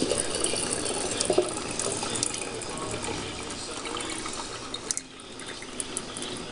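Hot water being poured gently out of a saucepan into a sink drain, splashing steadily; the stream thins to a trickle about five seconds in.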